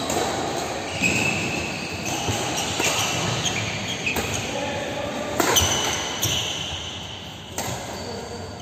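Badminton rally: a few sharp racket strikes on the shuttlecock, with short squeaks of shoes on the synthetic court floor and voices in the background.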